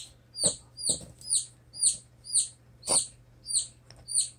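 Newly hatched chick peeping: a steady run of high, slightly falling peeps, about two a second.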